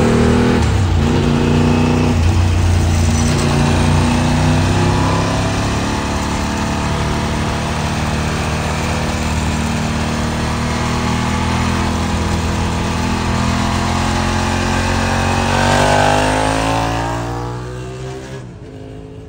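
Ducati 749R's L-twin engine through a Termignoni full exhaust, running steadily. Over the last few seconds its revs rise and the sound fades.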